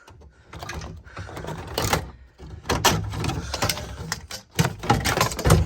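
Irregular clicks, knocks and rattles of car body and trim parts being handled and moved by hand.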